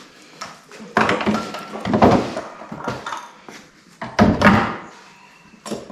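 A few separate clunks and clatters of metal engine parts and hand tools being handled and set down, some with a short metallic ring.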